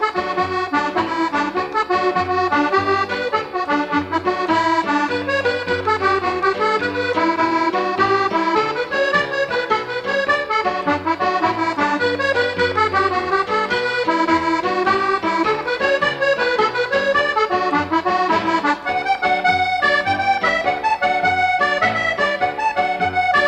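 Background music: a lively traditional-style instrumental tune led by accordion, with quick, busy melody notes over a steady bass beat.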